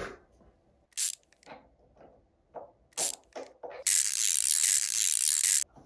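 A few faint plastic clicks and knocks as a 3D-printed ratchet is worked on a bolt, then a loud, rapid ratcheting rasp lasting almost two seconds. The printed ratchet itself is dead silent, so the rasp is not the printed tool's own sound.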